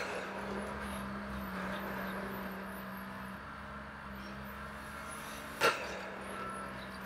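Machinery at a pile-driving rig running with a steady low hum, with a sharp bang right at the start and another about five and a half seconds in.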